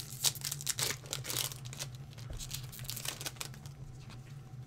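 Pokémon trading cards and foil booster-pack wrappers being handled: a dense crinkling and crackling for the first second and a half, then lighter scattered clicks as cards are moved and set down.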